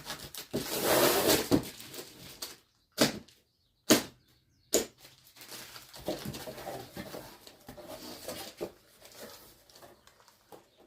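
Cardboard boxes and packaging being handled: a rustle about a second in, then three sharp knocks, followed by quieter rustling and light handling noises.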